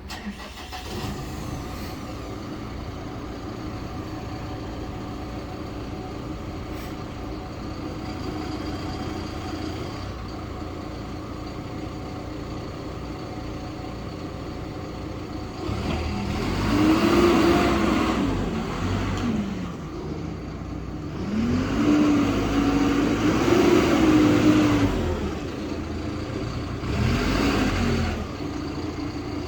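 Hidromek HMK 102B backhoe loader's diesel engine idling steadily, then revved three times in the second half, the pitch rising and falling each time.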